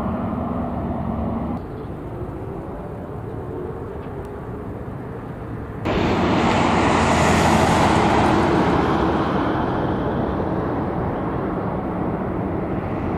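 Jet noise from USAF Thunderbirds F-16 fighters on approach with landing gear down: a distant, steady jet rumble at first. About six seconds in, a much louder jet sound comes in suddenly, is loudest a second or two later with a strong hiss, then slowly fades as the F-16 passes.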